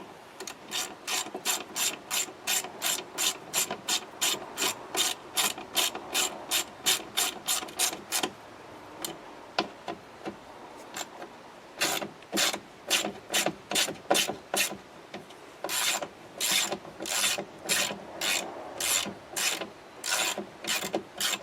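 A ratchet wrench clicking as bolts are tightened. The handle is swung back and forth about three times a second in three runs, with short pauses between them.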